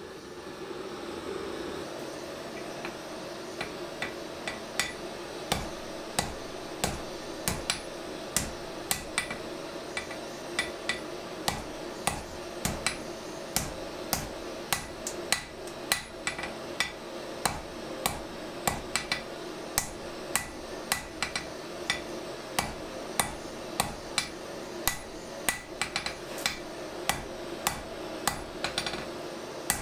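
Hand hammer blows on red-hot steel bar stock on an anvil, forging out a drawknife blank, about two strikes a second starting about four seconds in. Under them the steady roar of a gas forge burner.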